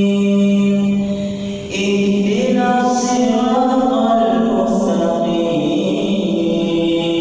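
A man's solo voice reciting the Quran melodically in maqam Jiharkah, unaccompanied. He holds long notes, with a rising, ornamented run in the middle and a higher held note near the end.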